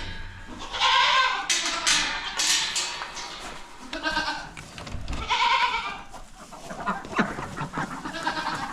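Goats bleating, several separate calls a few seconds apart.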